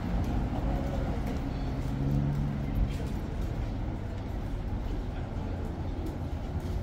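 Tram running, a steady low rumble with a faint hum in the first few seconds.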